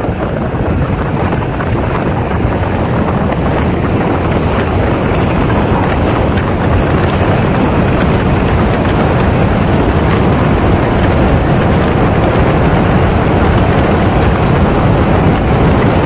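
Wind rushing over the microphone of a 360 camera mounted on the roof of a moving car, mixed with road and engine noise, growing slightly louder over the first several seconds.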